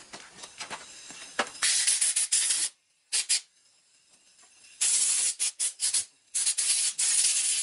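Compressed-air blow gun blasting in short bursts, blowing water out of the screw holes of a freshly washed black-powder revolver frame: a hiss of about a second, a short one near the middle, then a run of quick bursts toward the end. Before the first blast there are light handling clicks.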